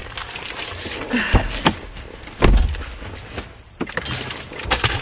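Scattered clicks, knocks and thumps of someone moving and handling things inside a car, with two heavier thumps about a second and a half and two and a half seconds in.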